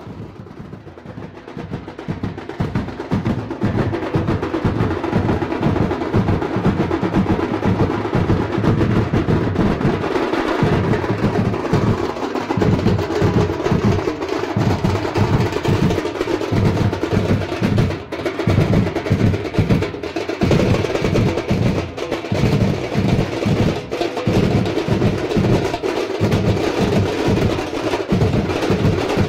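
Background music with a steady, driving drum beat, fading in at the start.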